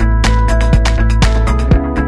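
Background music with a steady drum beat, about two deep beats a second, over held chords.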